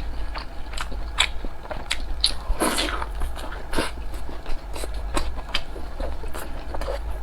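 Close-miked mouth sounds of someone chewing a steamed pork-and-eggplant dumpling: irregular soft clicks and smacks of the lips and tongue, with one longer, fuller sound about three seconds in. A steady low hum sits underneath.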